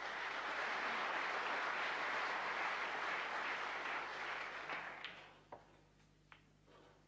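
Snooker audience applauding: a steady burst of clapping that fades away after about five seconds. A few faint clicks follow.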